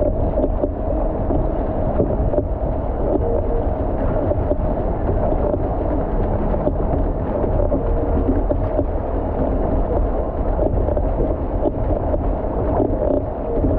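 Water rushing and splashing past an outrigger canoe's hull as the crew paddles, with wind blowing on the microphone and a steady drone underneath.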